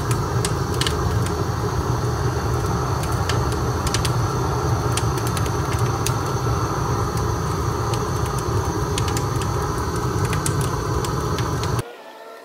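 Fire burning hard inside a stainless steel drum tandoor: a steady low roar peppered with sharp crackles and pops. It cuts off suddenly near the end.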